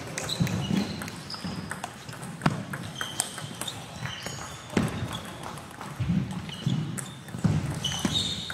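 Table tennis hall sounds between points: several sharp clicks of plastic table tennis balls bouncing, short high squeaks of sports shoes on the wooden floor, and faint voices in the background.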